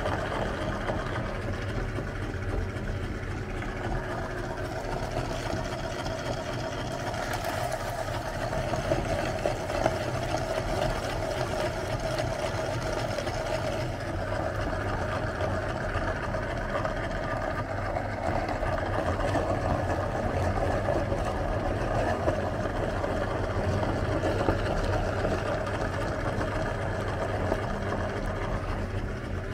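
Electric meat grinder running steadily under load, forcing ice cream and wafer through its cutting plate.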